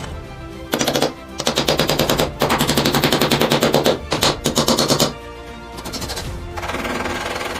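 Rapid rattling chatter of about nine hits a second, in several stretches over background music, giving way near the end to a steady whir of a power tool running.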